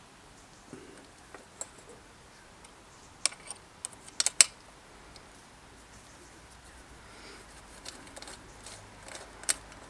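A 5 mm hex key working the mounting bolt of a Promax V-brake arm: scattered sharp metallic clicks and ticks of tool on bolt and brake arm, loudest in a quick cluster about three to four and a half seconds in, with another sharp click near the end.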